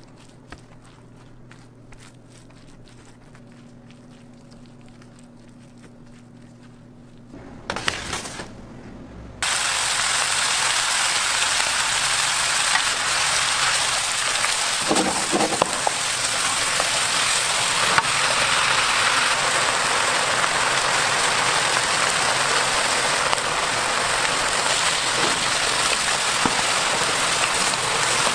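Shrimp sizzling loudly as they fry in a hot pan, a dense, even crackle that starts abruptly about a third of the way in, with some stirring. Before that only faint clicks and a low hum.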